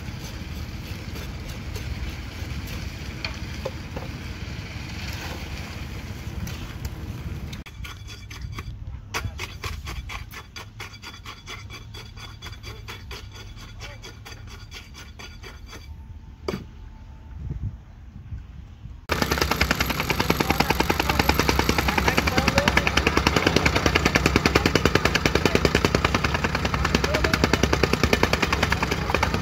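Three sounds in turn. First, the engine of a concrete mixer truck running. From about 8 s, a steel tamping rod rods fresh concrete into cylinder test molds, making regular light knocks. From about 19 s, a rammer (jumping-jack tamping compactor) pounds crushed stone, a sudden, much louder rapid hammering that is the loudest part.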